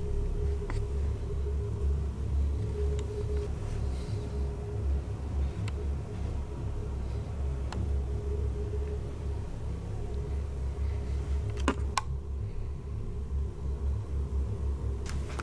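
Steady low rumble with a faint constant hum, and two sharp clicks close together about twelve seconds in.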